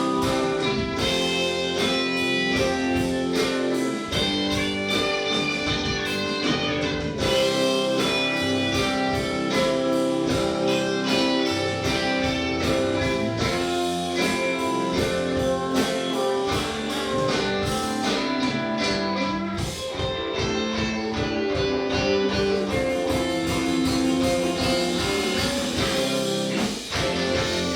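Live indie band playing with guitars to the fore over bass and drums.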